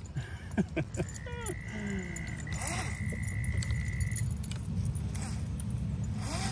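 Small electric motor of a toy RC boat whining under throttle, with a few quick falling pitch glides at first, then a steady high whine for about three seconds. A low rumble runs underneath.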